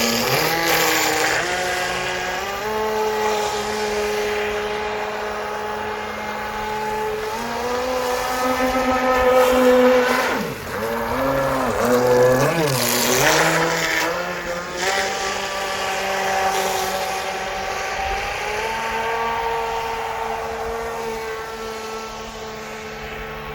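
Proboat ShockWave 26 RC boat's Traxxas Titan 12-turn brushed electric motor running on the water, a pitched whine that holds steady, then drops sharply and swings back up as the throttle is eased off and reapplied about ten to thirteen seconds in.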